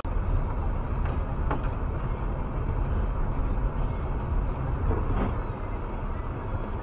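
Steady low road and engine rumble of a car being driven, heard from inside the vehicle.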